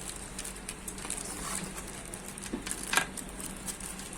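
Light handling noise from a collar (lavalier) microphone kit being unboxed: scattered small clicks and rustles of the mic, its wire and its packaging, with one sharper click about three seconds in, over a faint steady hum.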